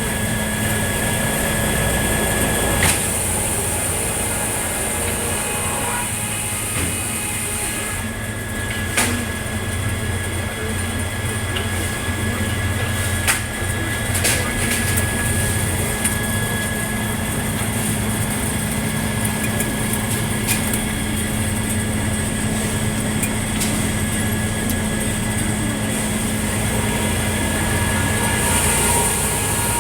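Circular sawmill running continuously while sawing a cottonwood log into cants, with a steady low hum under a high whine that swells at times. A few sharp knocks come through, about three seconds in and again around nine, thirteen and fourteen seconds.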